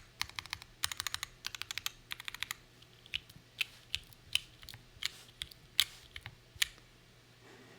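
Typing on an ATXKB Moontower v2 mechanical keyboard with stock Gateron KS-3 Milky Yellow Pro linear switches, GMK Dolch keycaps and a forged carbon-fibre half-plate. Quick runs of keystrokes for the first two and a half seconds give way to single key presses about half a second apart, which stop a second before the end.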